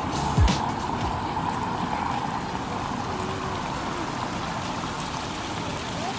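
Splash pad water jets spraying and splattering onto the ground: a steady hiss of falling water.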